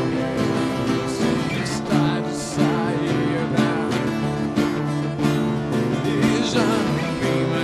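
Live band playing an instrumental passage on acoustic guitar, electric guitar and bass, with steady strumming.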